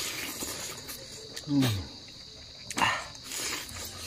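Men eating roast chicken with their hands, over a steady trill of night insects. A loud low grunt falling in pitch comes about a second and a half in, and a short loud noisy burst of mouth or breath sound near three seconds.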